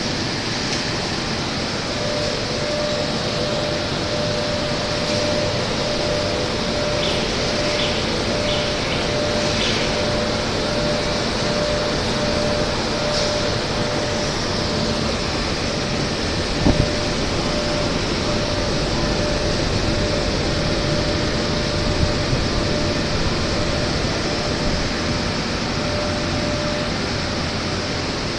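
Glass processing line machinery running steadily: an even mechanical hum with a faint steady tone in it. A single short knock comes a little past halfway through.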